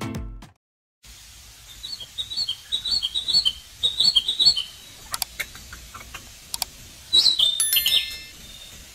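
Music stops abruptly at the start. After a brief gap, small birds chirp outdoors in a quick series of short high notes, with a few faint clicks and a louder high chirp near the end.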